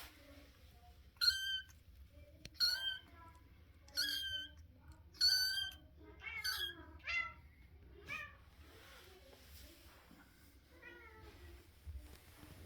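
Russian Blue kitten meowing in a string of about nine short, high, squeaky cries, roughly a second apart, growing fainter and sparser near the end.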